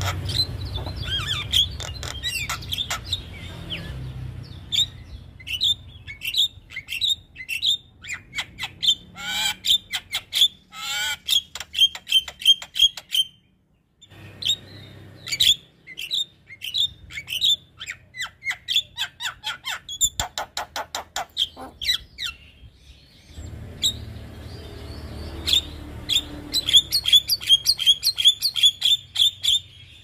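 Javan myna (jalak kebo) singing: a busy string of sharp chirps, squawks and clicks with fast chattering runs, cutting out for a moment a little under halfway. A low hum lies under the song at the start and near the end.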